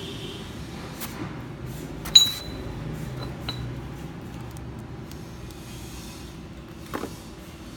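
Cast iron weight plates clank together once, loudly, about two seconds in, with a short metallic ring, as they are set down after hanging from the line. A few small clicks and a softer knock near the end sound over a steady low rumble.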